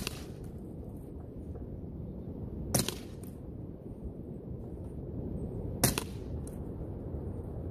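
Sig Sauer Air P320 X-Carry CO2 blowback BB pistol firing three shots about three seconds apart. Each is a sharp pop followed at once by a quick second click. Steady wind rumble on the microphone runs underneath.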